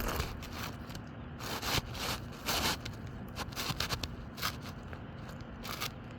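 Short, irregular scraping and rustling sounds of asphalt shingles being handled and worked during a roof repair, about five separate scrapes.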